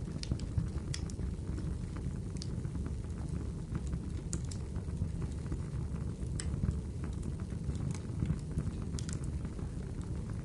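Wood fire burning in a fireplace: a steady low rumble with sharp, irregular crackles and pops scattered throughout.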